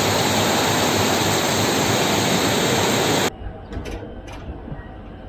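Loud, steady rush of water, like fast-flowing floodwater, that cuts off abruptly about three seconds in, giving way to a much quieter low rumble with a couple of faint clicks.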